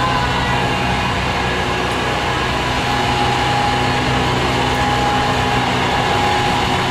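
Engine of a small 15-inch-gauge diesel locomotive running steadily as it moves slowly along the platform line, with a constant low hum and a faint steady whine.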